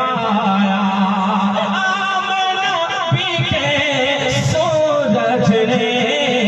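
Male voice singing a naat in drawn-out, gliding melodic phrases over a steady low drone.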